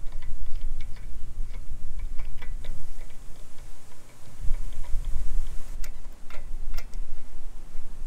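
Light metallic clicking and ticking of lug nuts being spun off the wheel studs by hand. There are a few sharper clicks around six to seven seconds in, over a low rumble.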